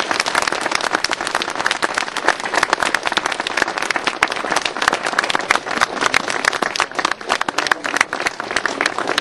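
Crowd of spectators applauding: many hands clapping in a dense, steady round of applause.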